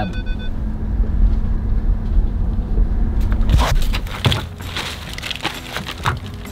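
Steady low rumble of a car's cabin while driving slowly down a rough track. Then, about three and a half seconds in, a string of knocks, clunks and rustles as shopping bags and items are lifted out of a hatchback's open boot.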